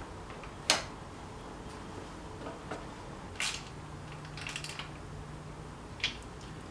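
Light hand work on a motorcycle: a sharp click about a second in, a knock near the middle followed by a short rustle, and another click near the end.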